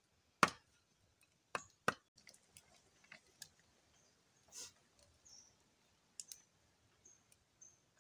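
Sharp knocks of a bolo knife chopping on wood: three in the first two seconds, then softer scattered clicks and knocks.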